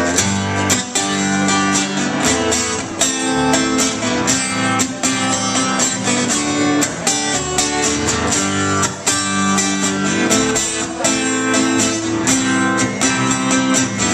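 A live acoustic band plays an instrumental passage: strummed acoustic guitar over a plucked upright bass, with drums played by hand keeping a steady beat.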